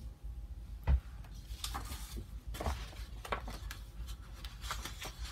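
Paper-crafting materials being handled on a desk: short rustles and small taps with no steady rhythm, and a sharper knock about a second in.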